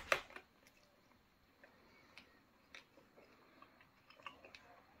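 A bite into a smoked bratwurst in a soft roll topped with bacon jam, followed by quiet chewing with faint, scattered mouth clicks.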